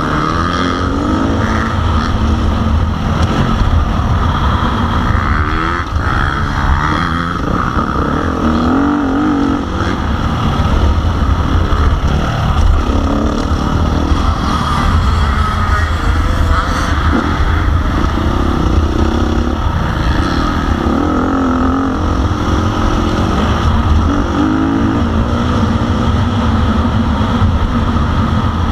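Motocross bike's single-cylinder four-stroke engine (KTM 350 SX-F) heard from onboard, its pitch rising and falling again and again as the rider opens and closes the throttle round the track, over a steady rumble of wind on the microphone.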